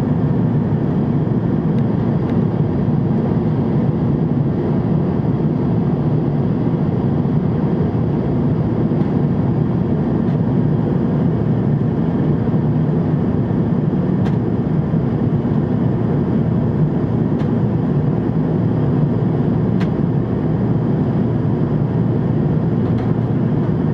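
Steady cabin noise of a jet airliner in flight: the engines and the rush of air past the fuselage, a low, even noise that doesn't change.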